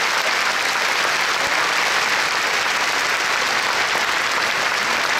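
An audience applauding steadily at the close of a speech.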